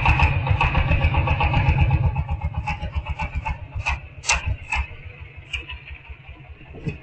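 Small single-cylinder engine of a three-wheeled motor cart chugging in rapid, even beats, fading somewhat after about two seconds, with a few sharp clicks in between.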